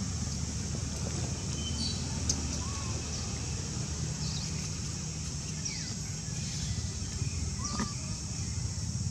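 Outdoor ambience: a steady high hiss over a low hum, with a few short, faint chirping calls that slide in pitch.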